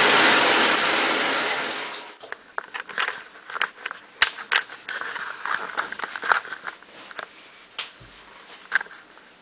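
Water running into the bathtub, fading out about two seconds in. Irregular small splashes, drips and clicks follow as the wet cat is handled in the tub.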